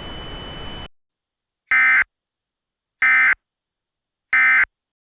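Emergency Alert System (SAME) end-of-message data bursts: three identical short digital bursts, each about a third of a second, about 1.3 seconds apart, marking the end of the alert. Before them a steady hiss with a thin high tone cuts off about a second in.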